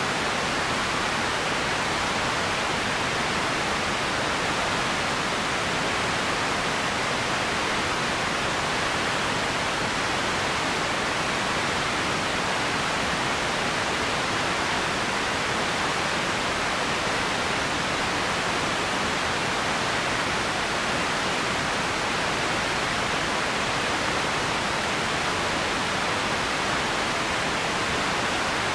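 Steady, unchanging hiss of empty ambience noise, with no separate sounds in it.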